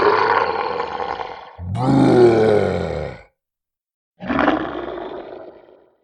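Fantasy dragon roar sound effect: three roars in a row. The first runs straight into the second, whose pitch falls; after a short gap a third, shorter roar fades out near the end.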